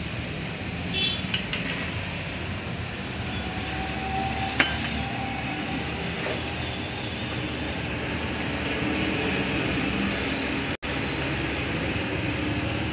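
Steel hand tools clinking against the Mahindra Bolero's gearbox casing as bolts are fitted with a socket wrench, with a short rattle about a second in and one sharp ringing clink a few seconds later, over a steady background hum.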